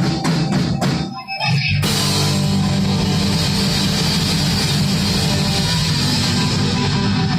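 Live rock band with distorted electric guitar, bass and drums: a few sharp drum hits in the first second and a half, then from about two seconds in the whole band holds one loud, sustained chord.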